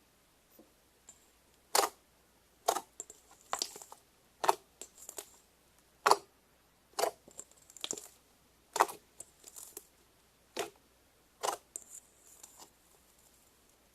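Slime being pressed and folded by hand, giving sharp pops and clicks about once a second, with faint crackling between some of them.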